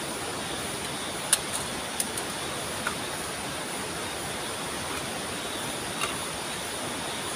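Steady rushing of river rapids, with a few sharp clicks about one, two, three and six seconds in.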